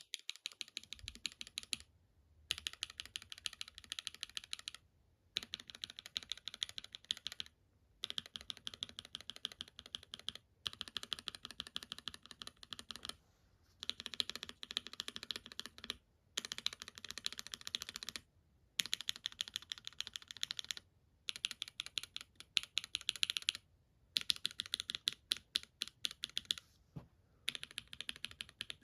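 Linear mechanical keyboard switches (Akko and KTT linears) with PBT keycaps, typed on rapidly in a switch tester. The fast clacking comes in runs of two to three seconds, one switch per run, with brief silent breaks between.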